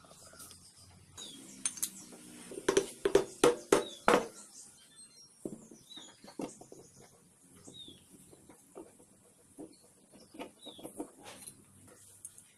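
Metal parts of a drill press's electric motor knocking and clattering on a work table as the rotor and motor housing are handled for reassembly: a quick run of loud knocks about two seconds in, then softer clicks of handling. Birds chirp briefly now and then in the background.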